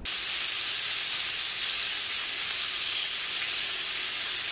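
Chicken thighs sizzling steadily in hot oil in a stainless steel skillet, a constant high hiss of frying.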